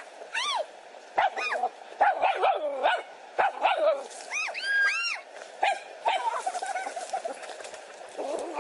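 A dog barking and yipping in an excited scuffle, with several short high yips that rise and fall in pitch. Scattered sharp clicks run between the calls.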